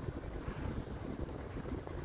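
Strong wind buffeting the microphone, an uneven low rumble with gusty surges.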